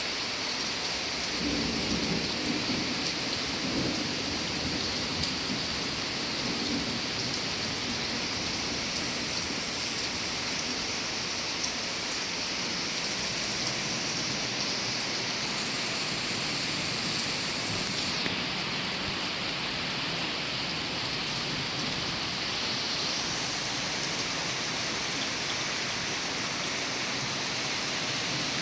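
Steady rain falling, an even hiss throughout, with a low rumble of thunder for a few seconds near the start.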